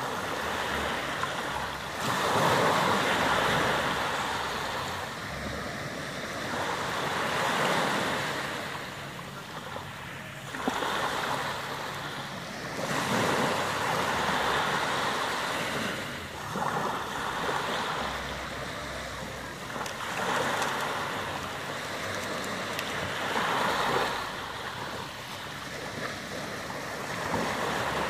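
Small sea waves breaking gently at the shoreline and washing up the beach, a swell of surf about every four seconds.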